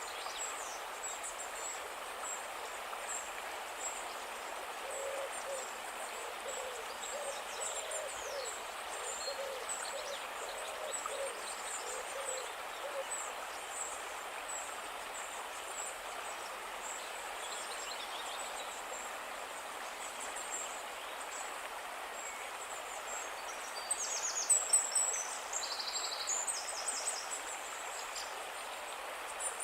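River water flowing steadily, with birds calling over it: a run of short, low, hooting notes from about five to thirteen seconds in, high chirps scattered throughout, and a louder burst of high calls a few seconds before the end.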